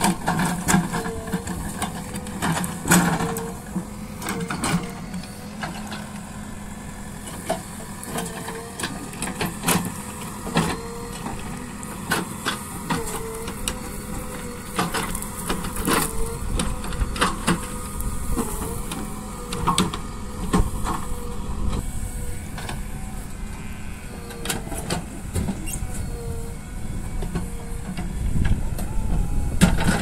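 JCB 3DX backhoe loader's diesel engine running under load as the backhoe digs a trench, with scattered sharp knocks and scrapes of the bucket working the soil. The engine gets louder near the end as the arm lifts and swings.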